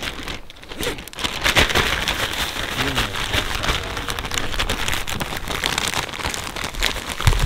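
A plastic zip-top bag crinkling and rustling as it is handled and shaken, with fish pieces and breadcrumb seasoning rattling inside: a dense, steady crackle.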